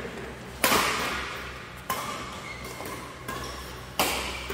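Badminton rackets hitting a shuttlecock in a rally: four sharp smacks about a second and a half apart, the loudest about half a second in, each ringing on in a large hall.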